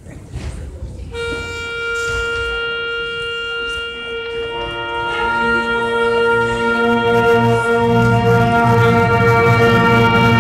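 School concert band playing long held notes. A single note starts about a second in, more wind instruments join on other pitches a few seconds later, and lower instruments come in near the end, so the chord swells louder.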